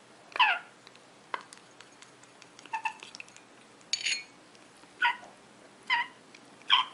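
An African grey parrot chick giving short, repeated begging calls, about one a second, while it is spoon-fed hand-rearing formula.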